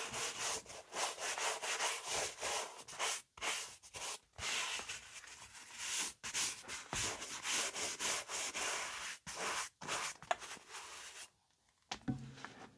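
A stiff-bristled brush scrubbing dry dirt and debris off the leather of a Dr. Martens oxford shoe in quick, repeated strokes. The brushing stops about a second before the end.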